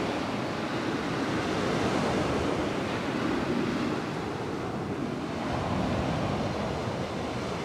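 Steady rushing of sea surf along the shore, with wind on the microphone.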